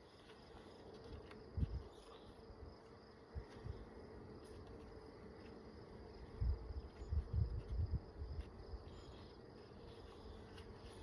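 Honeybees buzzing around an open hive, a steady hum, with a few low thumps and rumbles that are loudest between about six and eight seconds in.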